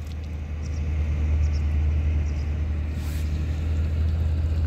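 A steady low rumble, with a few faint light splashes of hands in shallow river water.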